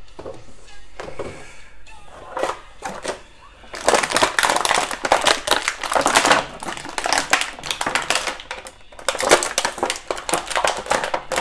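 Clear plastic packaging being handled as an action figure is worked out of it: a few light clicks and knocks, then from about four seconds in, dense crinkling and crackling of the plastic.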